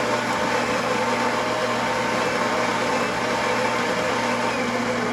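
Super-automatic espresso machine's built-in grinder grinding coffee beans for a drink: a loud, steady whirring grind with a low hum.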